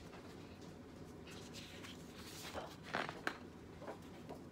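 A paper page of a spiral-bound coloring book being turned by hand: a rustle building about two and a half seconds in, then two or three sharp paper crackles just after three seconds.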